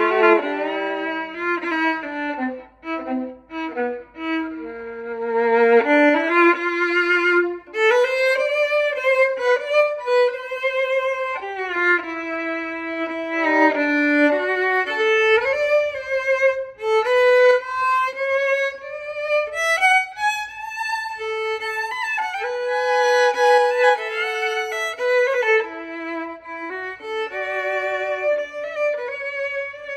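Solo fiddle playing a slow waltz: long held notes with vibrato and slides, often two strings sounding together as double stops. A quieter stretch of short, broken notes comes a few seconds in.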